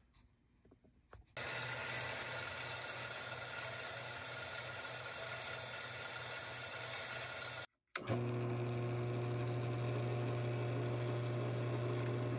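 Small horizontal metal-cutting bandsaw running steadily as its blade cuts through 1/4-inch brass bar stock. About eight seconds in it gives way abruptly to a drill press running with a steady low hum as the bit drills a hole through the brass shim.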